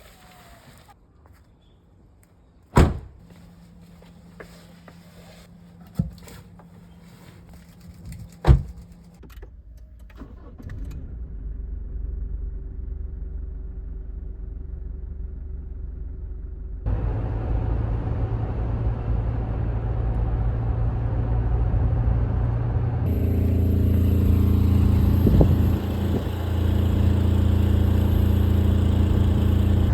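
Three sharp knocks, then a Toyota Land Cruiser's engine running with a steady low drone that gets louder in two abrupt steps.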